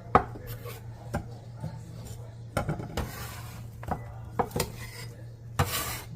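Kitchen knife knocking against a cutting board at irregular intervals, with a couple of short scrapes, as onions are chopped. A steady low hum runs underneath.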